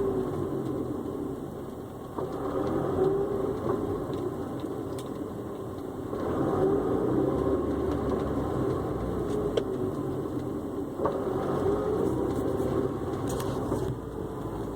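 Honda S2000's four-cylinder engine running steadily, its sound swelling and easing, with a few short sharp knocks now and then that fit the clunk being recorded.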